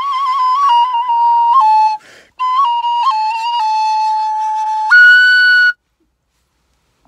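Kaval, an end-blown wooden flute, playing an ornamented folk melody with quick grace notes. There is a brief breath break about two seconds in, then the tune resumes and ends on a loud, higher held note that cuts off about six seconds in.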